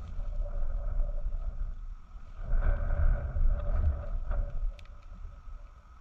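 Wind buffeting the microphone: a gusty low rumble that swells to its loudest around the middle and dies down near the end.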